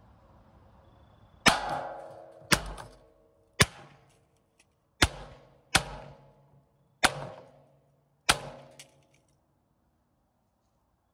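Seven .22 Long Rifle shots from a semi-automatic rifle firing Blazer 40-grain rounds, roughly a second apart, each a sharp crack with a short ring-out.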